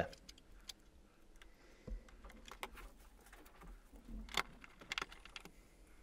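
Faint handling of the fridge's plastic dispenser display panel as it is reconnected: a few scattered clicks and taps, the sharpest about four seconds in.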